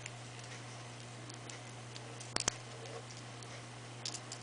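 Faint clicks and taps of hands handling small paper craft pieces while hot-gluing a rolled paper flower, with a sharper double click about two and a half seconds in and a few more clicks near the end, over a steady low hum.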